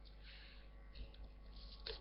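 Faint rustling of paper and sticker scraps being sorted by hand, with two light clicks, about a second in and near the end.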